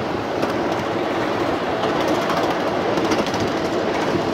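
Miniature park train rolling along its narrow-gauge track, heard from aboard a passenger car: a steady rumble of wheels on rail with a few light clicks in the middle.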